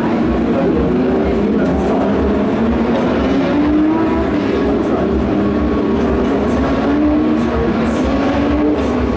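Several race car engines running out on the circuit, their notes rising and falling as they accelerate and lift, over a steady low rumble.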